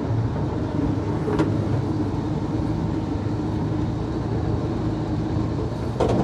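Dodge M37 wrecker's flathead six-cylinder engine running steadily as the truck crawls along a dirt trail. Near the end comes a sharp knock as the wrecker hits a tree.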